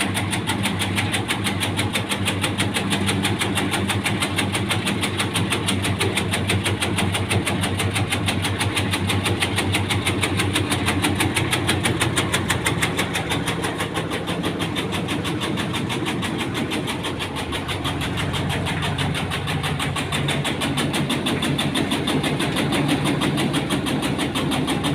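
Motorised tobacco-cutting machine running steadily while shredding tobacco leaves: a continuous engine-driven drone with a fast, even pulsing, easing slightly for a moment about two-thirds of the way through.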